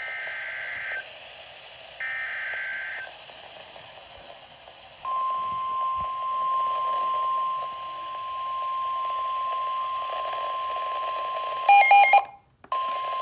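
NOAA Weather Radio Emergency Alert System signal over a radio receiver. It opens with two short bursts of warbling SAME digital header data, then the steady 1050 Hz weather-radio warning tone starts about five seconds in, announcing a severe thunderstorm warning. Near the end a brief louder electronic beep and a moment of dropout break in before the tone resumes, over steady radio hiss.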